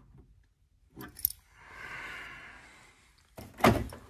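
Small metallic clicks and handling noise from a hand tool working the gas isolation valve under a boiler to shut off the gas, with a soft rustle in the middle and one louder knock near the end.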